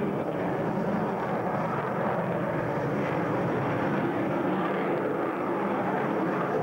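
Jet fighter's engines heard from the ground during an aerobatic display, a steady rushing noise that holds an even level.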